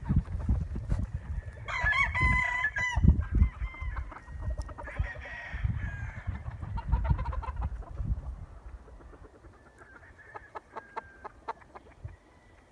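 A rooster crowing once, about two seconds in, among chickens clucking, with low rumbling noise under the first part that dies away in the second half.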